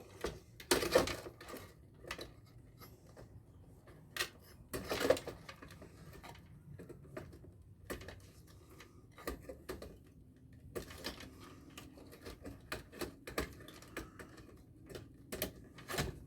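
Irregular clicks and knocks of hands cutting cables free from an air-conditioner circuit board with cutters and handling the parts, with the loudest knocks about one and five seconds in.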